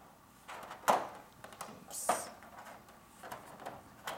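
A plexiglass sheet sliding along a poster frame, rubbing and scraping in a few short strokes.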